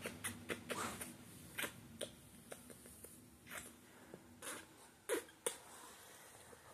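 Faint, irregular soft clicks and rustles from a small puppy being cuddled and nuzzled close against the phone.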